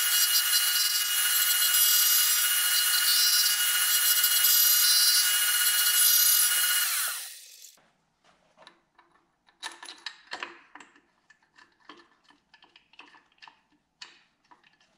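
A milling machine's end mill cuts the web of a cast aluminum power steering pump bracket, a loud, steady, high-pitched cutting noise with whining tones. It winds down and stops about seven seconds in. Then come faint clicks and knocks of metal parts being handled as the power steering pump is set into the bracket.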